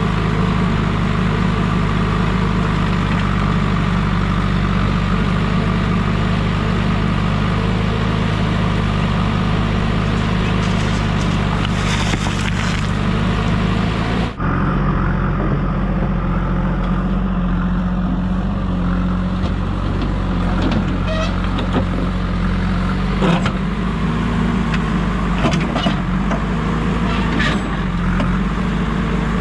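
JCB backhoe loader's diesel engine running steadily as the backhoe digs earth and rock. Scattered knocks and clatter from the bucket and rocks in the second half.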